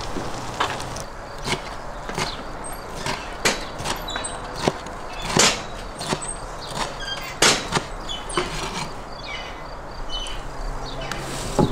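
Chef's knife chopping a roasted green pepper on a wooden cutting board: irregular knocks of the blade on the board, roughly one a second.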